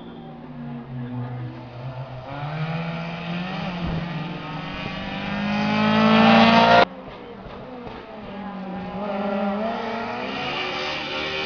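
Rally car engines running hard on a wet tarmac stage. A Peugeot 206 rally car approaches, revving up and down and getting louder until the sound cuts off suddenly about seven seconds in. A second rally car can then be heard approaching, its revs rising and falling.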